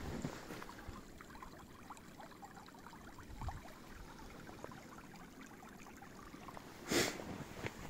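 Small open stream trickling quietly between snow-covered banks, with a brief, louder crunch near the end.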